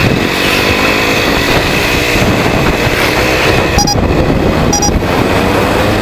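Motorcycle engine running under way, its note climbing gradually, with heavy wind noise on the microphone. Two short beeps come about four and five seconds in.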